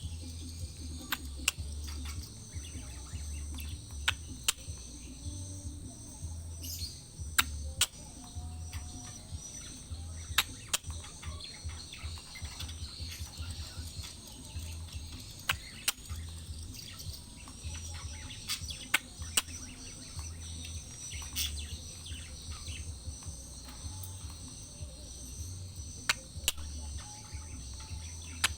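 Parakeets (betet) giving short, sharp calls at irregular intervals, over a steady high-pitched insect drone and a low uneven rumble.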